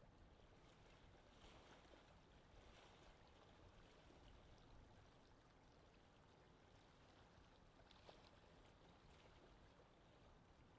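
Very faint nature ambience of wind, with water lapping as at a lakeshore: an even hiss with a few soft swells, one near the start and one later on.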